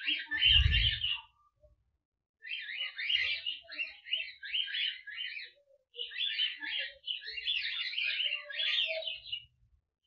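Cockatiel flock chirping and warbling in quick, chattering bursts, with a short pause about two seconds in. There is a low thud under the first burst.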